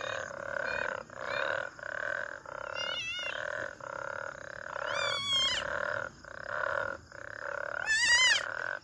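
Frogs croaking in a steady chorus, each croak about half a second long and repeating roughly every two thirds of a second. A few short, high, wavering cries break in over them, the loudest near the end.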